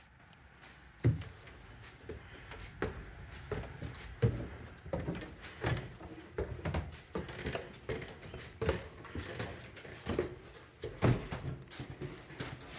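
Footsteps climbing a flight of stairs, one footfall roughly every 0.7 seconds, starting about a second in.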